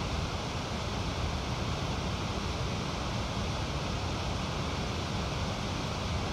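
Steady rush of river rapids: whitewater pouring around a large boulder, with no breaks or impacts.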